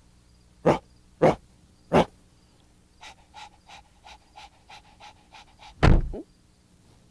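A dog giving three short, loud sounds, then panting in quick breaths of about four a second, ending in one louder sound near the end.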